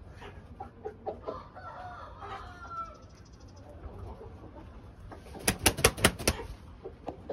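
Chicken clucks and short calls, then a rooster flapping its wings hard: about six quick beats in a second, starting about five and a half seconds in, the loudest sound here.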